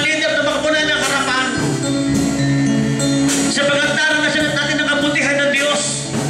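Worship music: a man singing through a microphone over steady instrumental backing with long held low notes.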